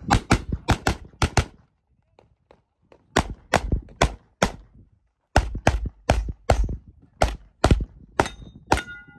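Rapid strings of gunshots, about twenty in three bursts separated by short pauses, as a shooter fires through a practical-shooting course. A steel target rings briefly after the last shots near the end.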